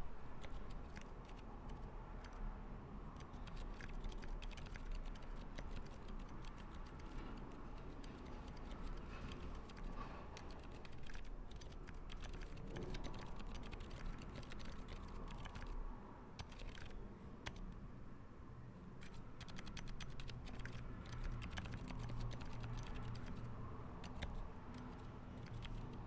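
Typing on an Iris split mechanical keyboard fitted with 62g Zilent silent tactile switches: quiet, muted keystrokes in a rapid, continuous run, partly drowned out by a steady low background rumble.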